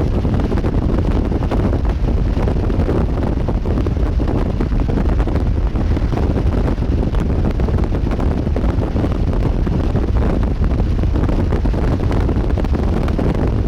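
Strong wind buffeting the microphone: a steady, loud, low rumble with no pauses.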